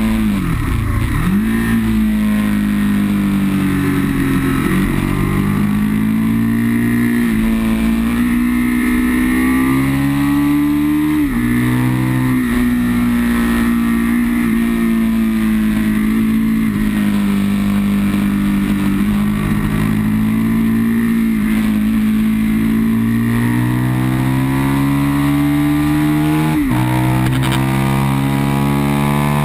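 Aprilia sport motorcycle's engine heard from on board under hard riding: the revs drop steeply in the first second or two, then climb and ease with the throttle, with quick upshifts about eleven seconds in and near the end. Steady wind rush runs underneath.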